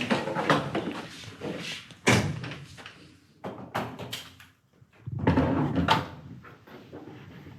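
Several muffled bangs and thuds, sharp-edged with a short ring after them; the loudest comes about two seconds in, and a longer rumbling stretch follows between about five and six seconds.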